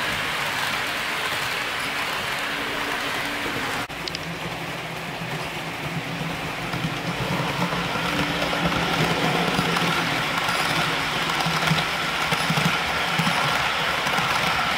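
HO-scale model train, a model EF61 locomotive hauling parcel cars, running on the layout: a steady hiss and rumble of metal wheels rolling on the rails. After a cut about four seconds in, a steady hum joins in and grows slowly louder as the locomotive approaches.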